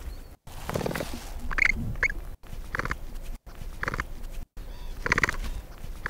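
Capybara calling: a string of about six short, rasping calls spaced roughly a second apart, with brief dead-silent gaps between some of them.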